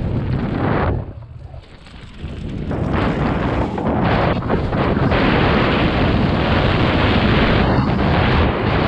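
Wind buffeting the action camera's microphone over the rattle and rumble of a downhill mountain bike's tyres on a dirt trail at speed. About a second in the noise drops sharply for a second or so, then builds back up.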